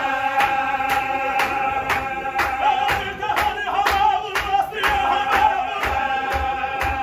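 Male voices chanting a Chechen Qadiri zikr on one long, slightly wavering held note, over a steady beat of hand-claps, about two a second.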